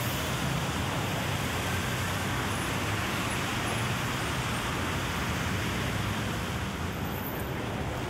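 Steady city street noise in the rain: a continuous wash of traffic and rain hiss, with no single event standing out.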